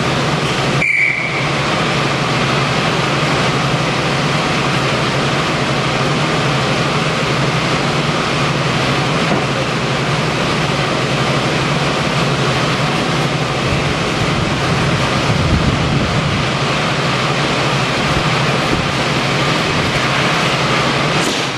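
Class 52 'Western' diesel-hydraulic locomotive, its twin Maybach engines running steadily, heard from an open carriage window. About a second in there is a brief sharp sound with a short high tone.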